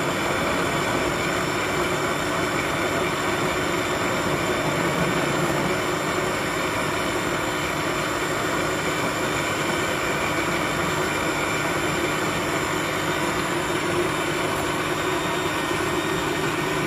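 Electric countertop blender running steadily at one speed, its motor and blade churning strawberries, banana, milk and yogurt into a smoothie.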